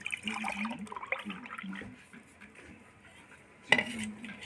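A drink poured from a metal pot into a ceramic mug, the liquid splashing as the mug fills during the first two seconds. A single sharp knock comes near the end.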